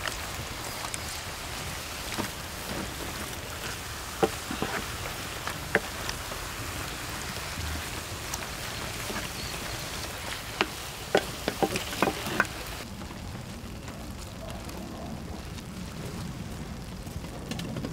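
Braised monkfish, bean sprouts and sauce sizzling on a large steel tray, with wooden spatulas knocking and scraping against the metal as they stir, several sharp knocks clustered between about four and twelve seconds in. A little past halfway the stirring stops and a quieter sizzle goes on.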